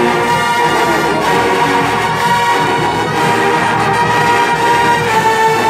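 Marching band playing loudly, the brass section holding long chords.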